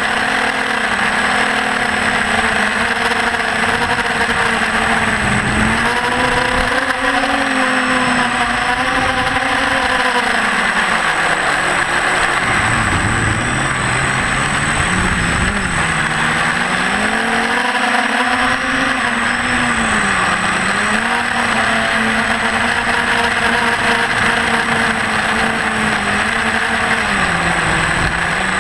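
Electric motors and propellers of a TBS Discovery FPV quadcopter buzzing in flight, the pitch dipping and rising again and again as the throttle changes, over a steady rush of air noise.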